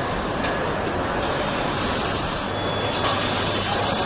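Car assembly-line machinery noise: a steady mechanical rumble with two bursts of hiss in the latter half.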